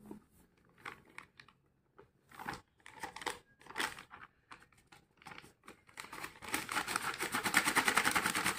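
Thin plastic rice-flour bag (500 g Rose Brand packet) crinkling as it is tipped and worked to pour the flour out: scattered crackles at first, becoming a fast, dense crackling in the last couple of seconds.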